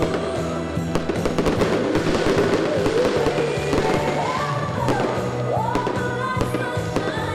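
Fireworks going off in a quick, irregular string of bangs, heard over music with singing.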